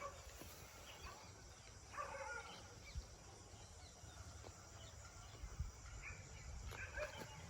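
A dog barking briefly twice, about two seconds in and again near the end, over faint outdoor background noise with a few low thumps.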